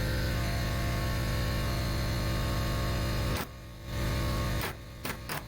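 A power tool running steadily with a low hum while cutting into a car body panel. It stops abruptly about three and a half seconds in, then comes back in a few short bursts near the end.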